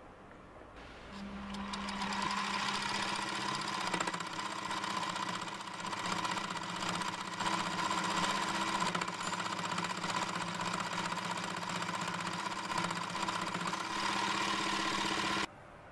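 Small bench metal lathe running steadily with a whine while turning a part bolted to its faceplate. The sound starts about a second in, builds up over the next second and cuts off suddenly near the end.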